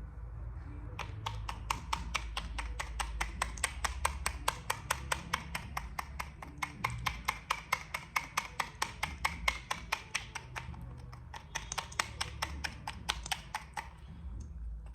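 Rapid, evenly spaced tapping clicks, about four or five a second, starting about a second in and easing off briefly around two-thirds of the way through, over a steady low hum.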